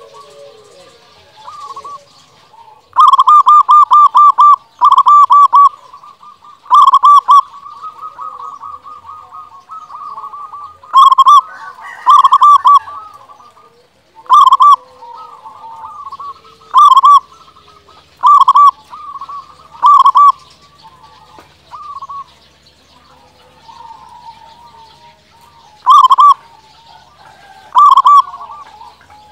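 Zebra dove (local perkutut) singing: bursts of rapid, rolling coos repeated every second or two, with softer, lower coos between them.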